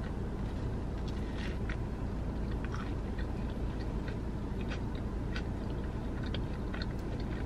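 A person biting into and chewing a mouthful of soft-bread sub sandwich, with faint scattered mouth clicks over a steady low hum.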